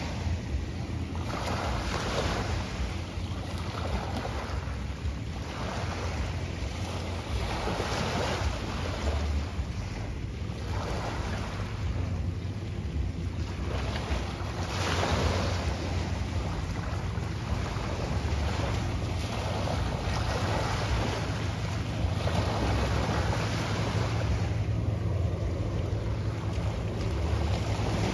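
Wind buffeting the microphone over choppy water, with waves washing in surges every second or two.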